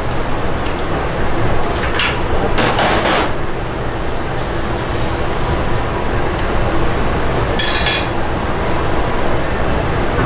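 Busy restaurant kitchen: a steady low rumble of kitchen noise with metal utensils and pots clattering, a cluster of clinks about two to three seconds in and another short clatter near eight seconds.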